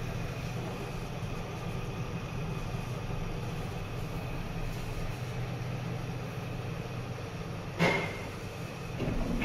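Kone MonoSpace machine-room-less traction lift car travelling, a steady low hum and rumble heard from inside the car. About eight seconds in a sharp click with a short high tone sounds as the car arrives, and a rising shuffle near the end as it comes to the landing.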